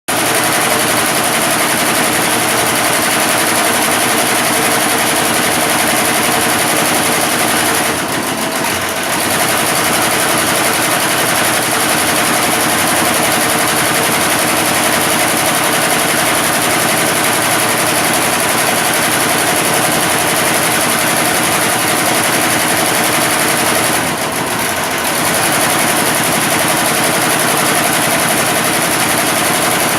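Computerised embroidery machine stitching at speed: a loud, fast, steady mechanical rattle of the needle drive. It eases off briefly twice, about eight seconds in and again past twenty-four seconds.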